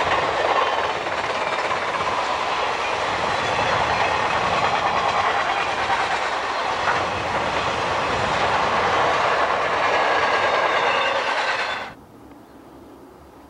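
Freight train of double-stacked containers rolling steadily past, the cars and wheels making a continuous loud rattle on the rails. It cuts off suddenly near the end.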